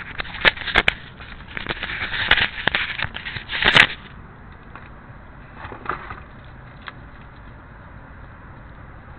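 Handling noise on a small keychain camera: rubbing and scraping with several sharp clicks for about the first four seconds, then only a steady low hiss once it is still.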